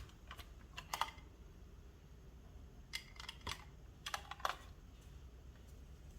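Short, irregular runs of light, sharp clicks and taps: a cluster near the start, another about a second in, and two more between about three and four and a half seconds, over a faint low hum.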